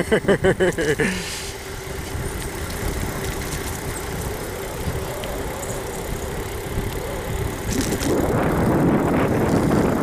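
Wind buffeting the microphone and tyre rumble from an electric mountain bike rolling along a paved road, a steady noisy rush that grows louder near the end.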